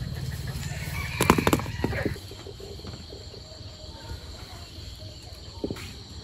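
A rooster crowing in the background, with a few sharp knocks about a second in. A low hum stops about two seconds in.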